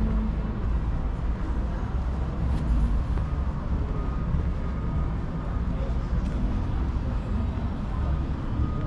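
City street ambience: a steady low rumble of road traffic, with indistinct voices of passers-by.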